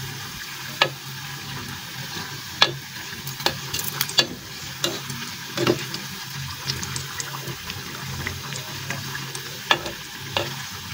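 Mandazi dough deep-frying in hot oil in an aluminium pot, a steady sizzle, with a perforated metal skimmer turning the pieces and clinking against the pot now and then.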